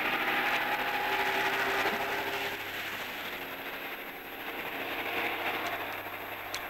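Sea water washing against a concrete seawall, a steady rush that eases off about halfway through. A few sustained low tones sound under it early on.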